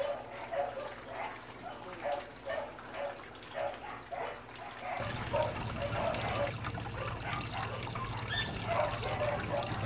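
Water trickling and dripping as anesthetic tank water is poured through a funnel and tubing over an arowana's gills and drains into the tray below, with short drips coming about twice a second. About halfway through a steady low hum comes in under the trickling.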